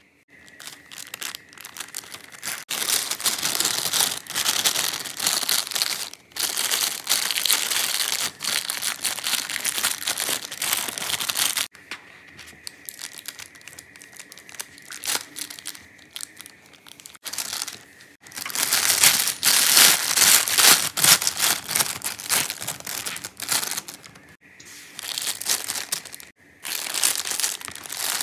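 Thin plastic piping bag crinkling as it is handled and filled with mashed potato dough. It comes in two long loud stretches, with quieter rustling between.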